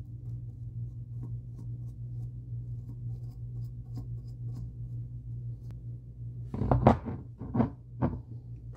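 Paintbrush dabbing and scrubbing paint onto a small carved lure: faint scratchy taps over a steady low hum. About six and a half seconds in, the metal helping-hands clamp stand is moved, giving a few loud knocks and rattles.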